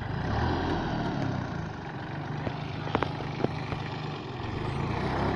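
Captain 28 HP four-wheel-drive compact tractor's diesel engine running steadily as it pulls a plough through the soil, with a few sharp clicks midway.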